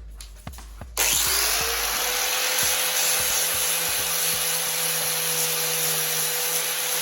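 Power grinder starting about a second in, its whine rising quickly and then holding steady over a loud grinding hiss as it grinds down a built-up solder patch on a steel gas tank.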